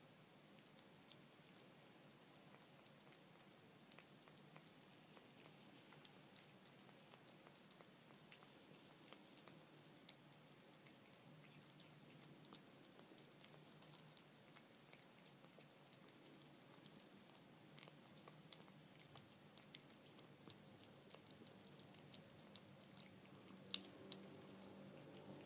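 A cat licking and chewing wet canned tuna: faint, irregular small clicks and smacks of its tongue and jaws, a few each second.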